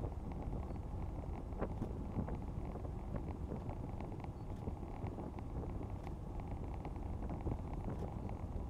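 Steady cabin noise of a Zeppelin NT airship in cruise: the low, even drone of its propeller engines and airflow, heard from inside the gondola, with a few faint ticks.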